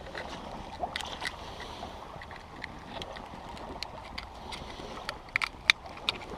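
Irregular sharp clicks and taps of shellfish shells knocking together as they are handled, over a low steady hiss, with a cluster of louder clicks about five to six seconds in.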